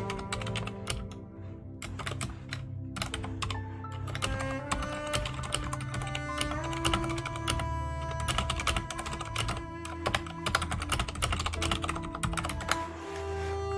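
Typing on a computer keyboard: quick, uneven runs of keystrokes, over background cello music with long held notes.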